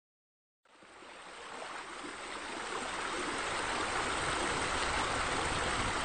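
Steady rushing of running water, fading in from silence about half a second in and swelling for the next few seconds before levelling off.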